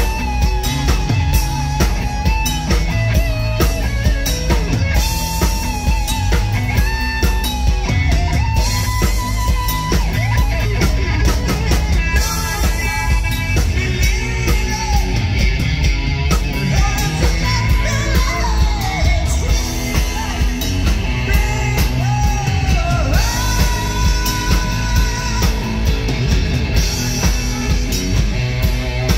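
Rock music with a steady drum beat, guitar and a singing voice carrying the melody.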